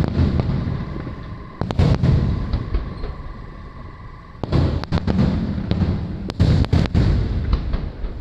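Aerial fireworks shells bursting overhead: sharp booms in clusters, each trailing a low rumbling echo. A group of bangs comes about two seconds in, another at about four and a half seconds, and a rapid string of them between six and seven seconds.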